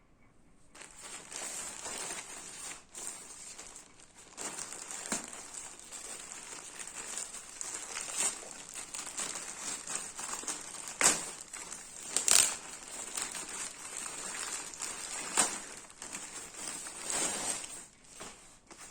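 Plastic packaging crinkling and rustling as a parcel is handled and unwrapped, starting about a second in, with several sharper, louder crackles along the way.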